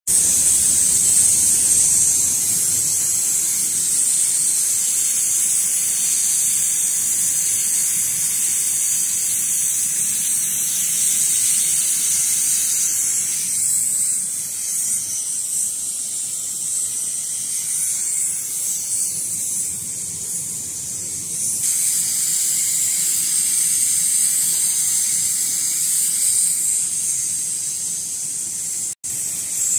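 Hot air welding machine blowing hot air onto PVC duct tape: a steady, high-pitched hiss of air from the nozzle, cutting out for an instant near the end.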